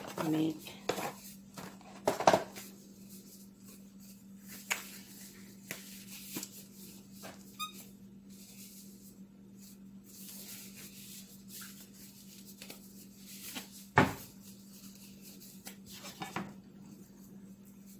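Disposable plastic gloves being pulled from their cardboard box and put on: scattered rustling and light handling clicks, with sharp knocks about two seconds in and again about fourteen seconds in, over a steady low hum.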